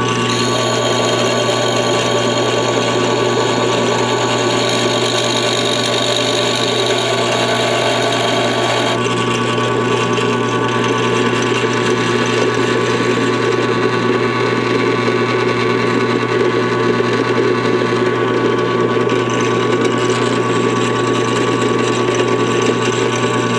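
Drill press running with an end mill in the chuck, cutting into a diecast metal part; the cutting sound drops away about nine seconds in while the motor keeps running steadily.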